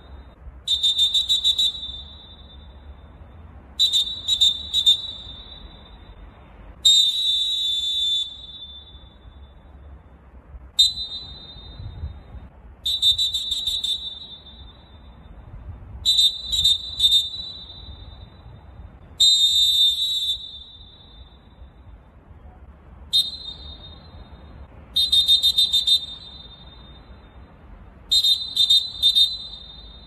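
Molten referee whistles blown at full force, one model after another (Blazza, then Dolfin B from about 11 seconds in, then Dolfin F from about 23 seconds in). Each gets the same high-pitched sequence: a short blast, a quick run of short blasts, a few blasts, then one long blast.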